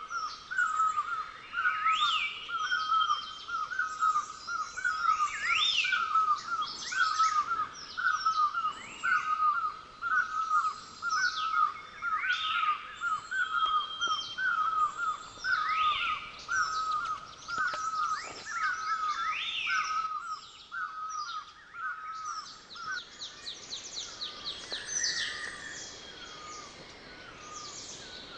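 Several forest birds calling together. One repeats a short low note about twice a second and stops about three-quarters of the way through, while others give higher chirps and rising whistles every few seconds. A quick run of high notes comes near the end.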